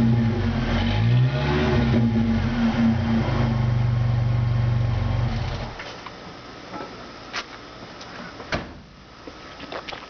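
1993 Ford Mustang 2.3 L four-cylinder engine heard at the exhaust tailpipe. The revs rise and fall briefly, then hold steady, and the engine cuts off about six seconds in. A few sharp clicks follow.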